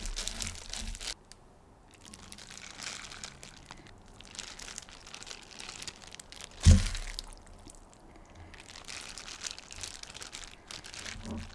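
Plastic glove crinkling and wet, seasoned somen noodles squishing as they are tossed by hand, with one dull thump a little past halfway.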